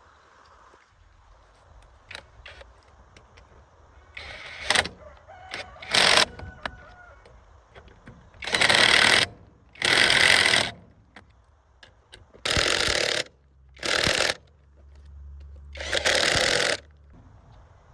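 A power tool run in short bursts: seven bursts of under a second each, starting about four seconds in, with short pauses between them.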